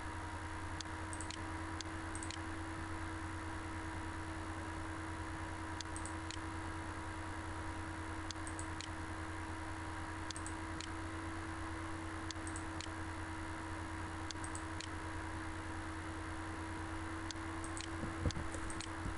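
Computer mouse clicking every second or two, often two clicks close together, over a steady electrical hum and hiss, with a soft knock near the end.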